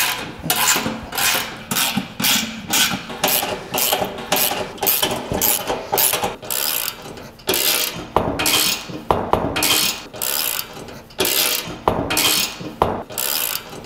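A 3/8-inch socket ratchet with a 17 mm socket clicking in repeated back-and-forth strokes, broken by short pauses, as nuts are run down snug on the carrier's bolts.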